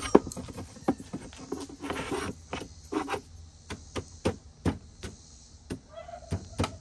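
Steel square-tube shelf bracket being worked into a hollow wooden floating shelf: a series of irregular knocks and clanks of metal against wood.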